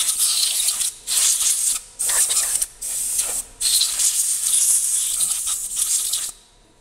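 Compressed-air blow gun with a red extension nozzle hissing in five blasts, clearing metal chips from a milled workpiece. The last blast is the longest and cuts off shortly before the end.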